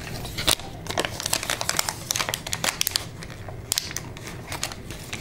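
Paper stickers being handled by fingers: the sticker sheet crinkling as a sticker is peeled off and rubbed down onto paper, in a quick, irregular run of small crackles and rustles.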